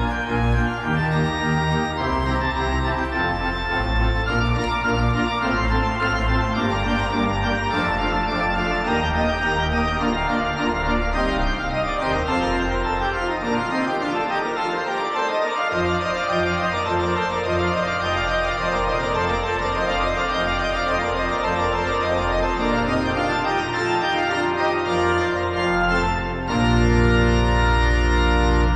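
Organ music playing held chords, thinning briefly in the bass around the middle and swelling louder with deep bass notes near the end.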